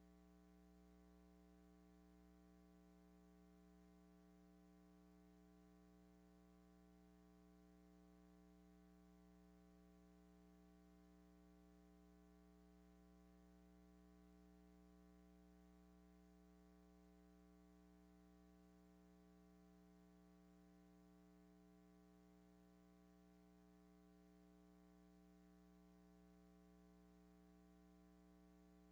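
Near silence: only a faint, steady electrical hum with no other sound.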